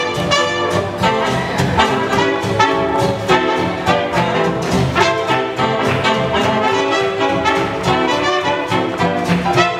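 Swing jazz music for Lindy hop dancing, with trumpets and trombones over a rhythm section.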